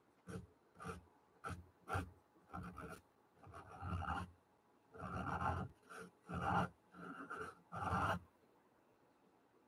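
Pastel pencil scratching over watercolour paper coated in clear gesso, in a series of strokes: short quick ones at first, then longer strokes, stopping about 8 seconds in.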